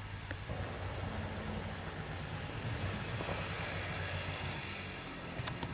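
Polaris 250 4x4 ATV engine running steadily at a low, even pitch, with a couple of sharp clicks near the end.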